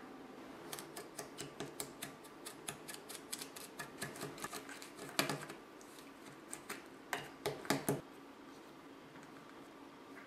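Small plastic spoon clicking and scraping against a plastic tray while stirring powder and water into a stiff candy dough: a quick, uneven run of light clicks that stops about eight seconds in.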